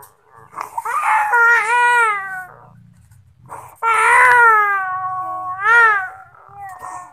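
Infant crying: three long cries with short breaths between them, each sliding up and then down in pitch, and another cry starting right at the end.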